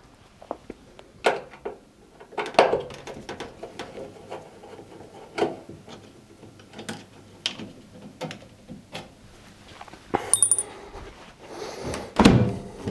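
Scattered clicks, taps and knocks of the two rear screws being undone and the metal top panel of a Samsung washing machine being slid off, with a brief high whine about ten seconds in and the loudest knock and scrape near the end.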